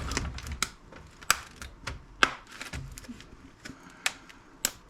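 A series of about ten sharp, irregular plastic clicks and cracks as a laptop touchpad is pried loose from its casing.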